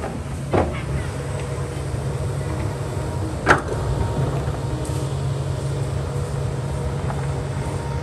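Kobelco excavator's diesel engine running steadily under load, with two sharp knocks, one about half a second in and a louder one about three and a half seconds in.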